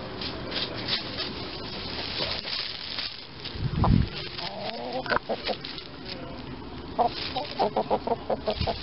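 Chickens clucking in alarm at close range, ending in a quick run of about eight clucks. A loud low thump comes about four seconds in.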